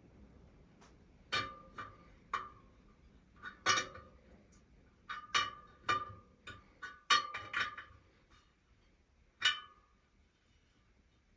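Light metal clinks and short pings from a speedway wheel's spokes being worked with a spoke key during truing, irregular, about fifteen over some eight seconds, several ringing briefly.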